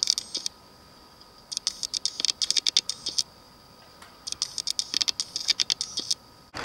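Rose-ringed parakeet working its bill at a hole in a concrete wall vent: three bouts of rapid, sharp scratching clicks, each lasting a second or two, with short quiet gaps between them.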